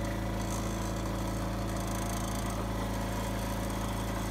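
Mini combine harvester running steadily: its engine and threshing drum and cleaning fan give an even mechanical drone while threshed paddy goes into the sack.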